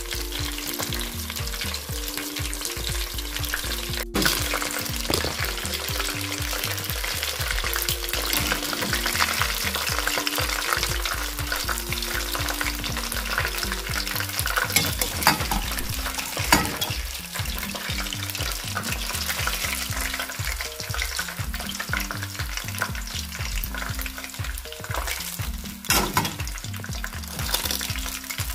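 Battered chicken drumsticks deep-frying in hot oil in a steel pot: continuous dense crackling and sizzling, with a few sharp clicks along the way.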